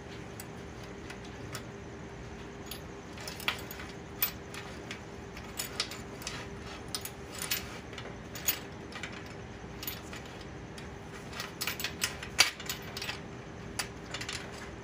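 Steel chain links, a metal ring and a horseshoe clinking and rattling against each other and a perforated steel welding table as they are handled. The clinks come irregularly, thickest and loudest in the last few seconds, over a faint steady hum.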